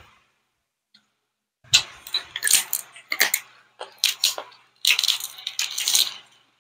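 Close-miked crunching of crispy fried pig ears (crispy tenga) being bitten and chewed: rapid clusters of sharp cracks that start a little under two seconds in, after a near-silent moment.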